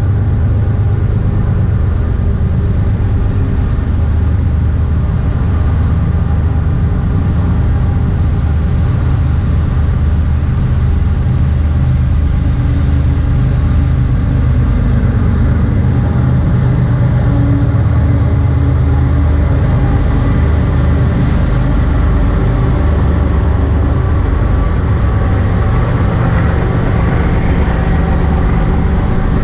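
A diesel-led intermodal freight train headed by BNSF GE ES44C4 locomotives runs past, giving a loud, steady low rumble with a hum of engine tones. Near the end the double-stack container cars roll by and the wheel-on-rail noise grows brighter.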